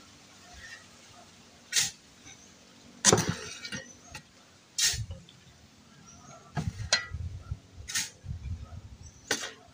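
Sharp knocks and clinks of hand tools at construction work, about six of them spaced roughly a second and a half apart. The loudest comes about three seconds in and is followed by a brief rattle. Duller handling and scraping noises fill the gaps in the latter half.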